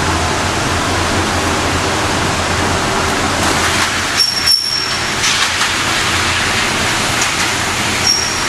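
Steady, loud rushing noise, with a few faint sharp knocks about four to five seconds in and again near the end.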